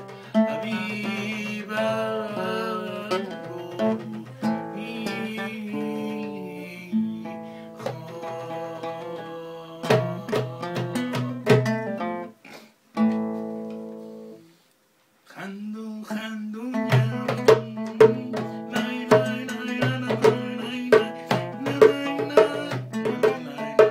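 A man singing with feeling over recorded guitar music. The music drops to silence twice around the middle, then comes back with a plucked, rhythmic guitar pattern.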